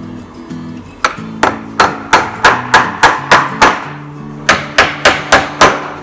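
Hammer driving nails into a wooden frame: a quick run of sharp blows, about three a second, starting about a second in, with a short pause just past the middle. Soft background music plays underneath.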